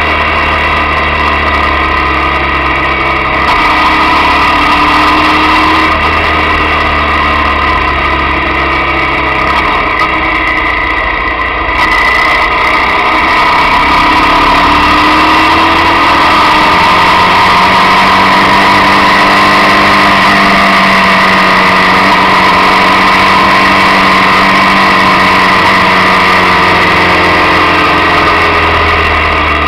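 Motorcycle engine running while riding, heard from on board, its pitch rising and falling several times with the throttle through the bends, over a steady rush of wind and road noise.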